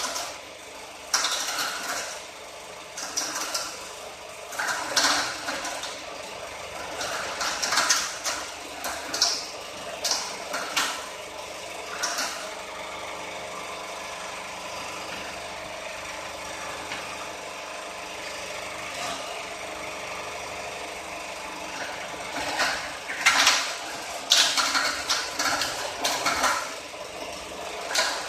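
Coconut-shell peeling machine running with a steady motor hum. Repeated short, harsh scraping bursts come as a coconut's hard shell is worked off. These are frequent for the first dozen seconds, stop for a steady stretch of hum, and return near the end.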